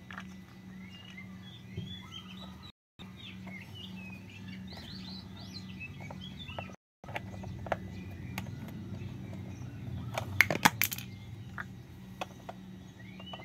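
Hard plastic toy parts clicking and clacking as a toy screwdriver drives plastic screws into a toy train's wheels, with a quick run of loud clicks about ten seconds in. Birds chirp in the background over a steady low hum, and the sound cuts out briefly twice.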